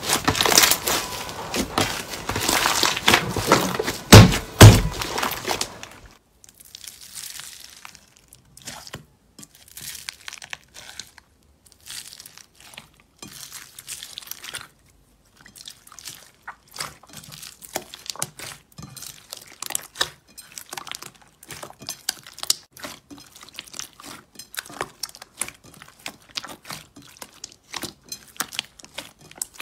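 Hands kneading and squishing a thick rainbow slime, loud and dense, with two heavy thumps about four seconds in. Then, after a sudden drop, a pink foam-bead slime (floam) is pressed and poked, giving many small, scattered crackles and pops.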